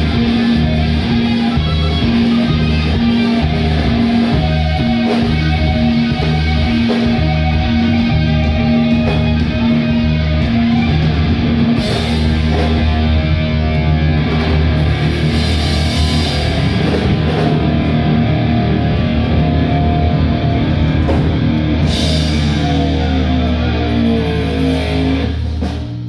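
Live rock trio playing loud: distorted electric guitar over bass guitar and drums, with long held low notes. Over the last few seconds the guitar sweeps through bending, sliding pitches as the band drops down.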